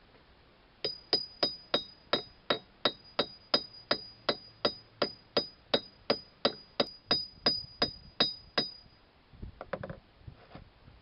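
Steel parts of a Wilton bench vise being assembled: a steady run of about two dozen sharp metal-on-metal clinks, about three a second, each with a bright ring. It stops near the end, and a few softer knocks follow.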